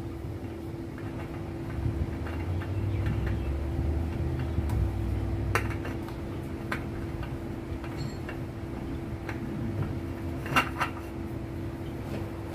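Scattered small metallic clicks and clinks of a gloved hand working at a 2020 Mazda CX-9's oil filter mount, preparing to fit the new oil filter. Two louder clinks come about halfway through and near the end, over a steady background hum.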